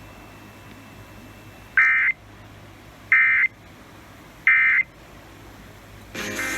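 Emergency Alert System digital data bursts: three short, identical squawks of two-tone data about a second apart, the end-of-message code that closes a broadcast alert. Near the end, a longer data burst begins, the header of the next alert.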